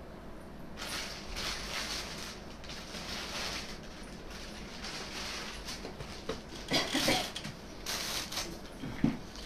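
Rustling of garments being handled and unfolded, in uneven bursts that are loudest about seven seconds in, with a few light clicks.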